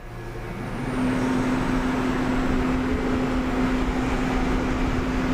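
Steady electric hum of a Daegu Subway Line 2 Series 2000 train standing at the platform. A low drone swells up over the first second, then holds level.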